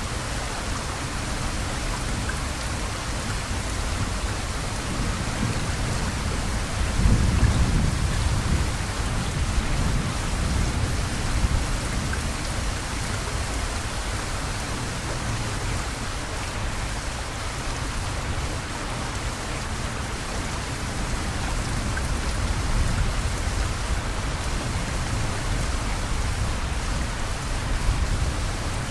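Heavy rain falling steadily on a yard, trees and street, with a low rumble of thunder swelling for a few seconds partway through.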